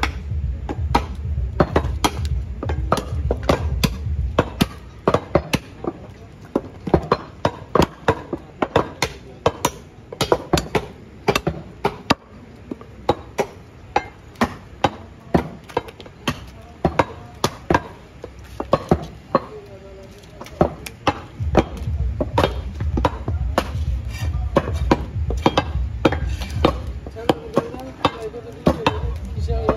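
Heavy cleavers chopping beef on wooden log chopping blocks: a fast, uneven run of sharp chops, several a second, from more than one butcher working at once. A low hum sits underneath at the start and again later on.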